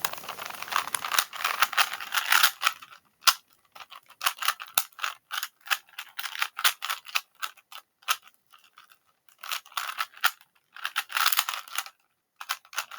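Rubik's cube being scrambled by hand: quick runs of plastic clicking and clattering as the layers are turned, in bursts with short pauses.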